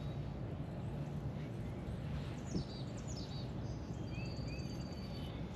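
Songbirds chirping, with short whistled calls and one held thin note from a couple of seconds in, over a steady low background rumble.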